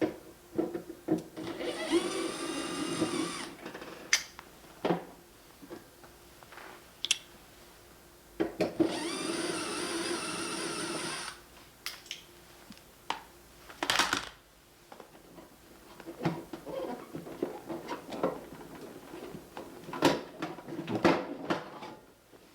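Small electric motor tool, most likely a cordless screwdriver, whirring in two bursts of a couple of seconds each while driving screws, with scattered clicks and knocks around them.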